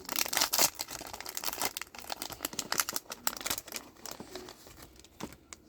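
Foil wrapper of a Pokémon trading card booster pack crinkling and tearing as it is worked open by hand. The pack is hard to tear, and the dense crackling dies away about four seconds in.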